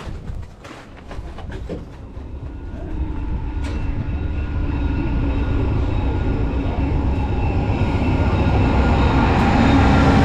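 VIA Rail diesel-hauled passenger train approaching: a deep rumble with steady engine tones growing steadily louder from a few seconds in.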